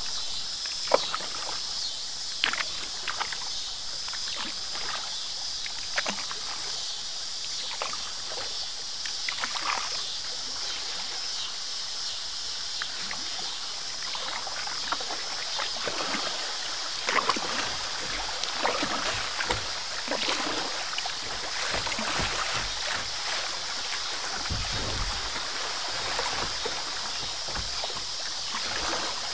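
Moving kayak running through a shallow river riffle: a steady rush of water around the hull, with scattered short splashes and knocks from paddling.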